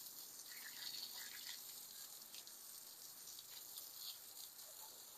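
Faint, steady hiss of water, with a few soft short chirps over it.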